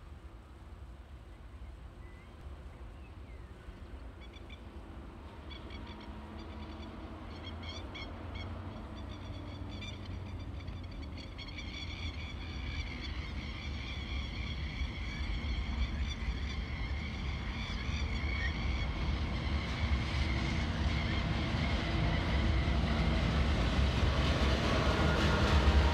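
TasRail TR-class diesel locomotives approaching with a container train, their deep engine rumble growing steadily louder, with a high steady whine above it through the middle of the stretch.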